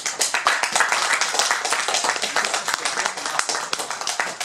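Audience applauding: many people clapping in a dense patter that tapers off at the very end.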